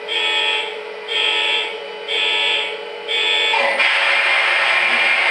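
Model train locomotive sound systems: a steady hum with a high, beeping pulse about once a second, four times. About three and a half seconds in, a loud continuous horn or whistle sound with hiss sets in from the several locomotives of the consist.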